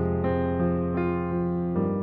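Background music: slow, sustained keyboard notes, piano-like, changing every half second or so.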